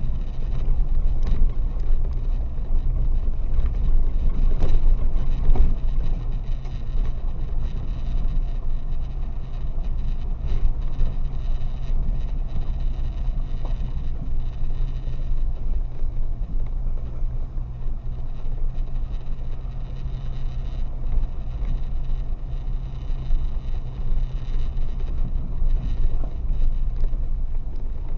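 Car driving slowly on a dirt road, heard from inside the cabin: a steady low rumble of engine and tyres, with a few faint knocks from bumps in the road.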